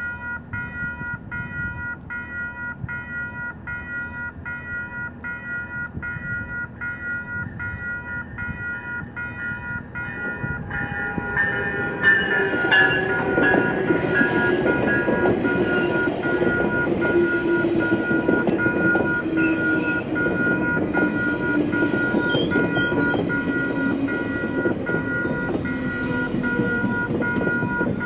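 Level-crossing warning bell ringing steadily, about two strikes a second. About eleven seconds in, a GO Transit bilevel commuter train comes through the crossing, and its wheels rumble and clatter on the rails under the bell.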